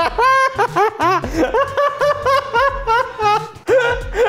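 A man laughing hard and high-pitched, in quick repeated bursts of ha-ha, with a brief pause near the end before it starts up again.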